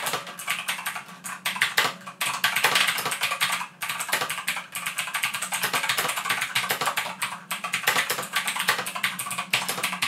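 Fast typing on an EasySMX mechanical gaming keyboard with clicky Outemu Blue switches: a dense, continuous clatter of keystroke clicks, fairly loud.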